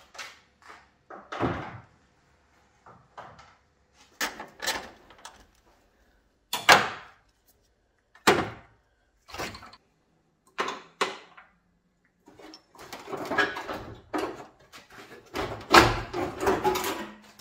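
Irregular metallic knocks and clanks as a damaged front fender is pried and pulled off a BMW E30 body, with two sharp bangs in the middle and a busier run of rattling knocks near the end.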